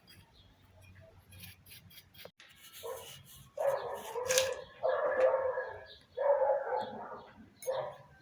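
A dog barking repeatedly, about once a second, in four or five drawn-out barks starting about three seconds in.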